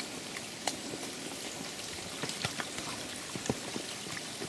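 Spring water running from pipes in a steady splashing hiss, with scattered footsteps and light knocks on a dirt path.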